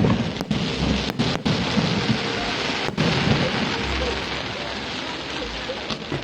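Aerial fireworks going off: a dense crackling hiss with low rumbling booms, and sharp bangs about half a second, just over a second, and three seconds in.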